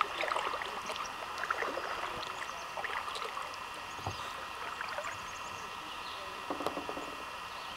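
Water sounds of a kayak on the move: paddle blades dipping with small splashes and trickling drips along the hull, coming irregularly over a steady hiss.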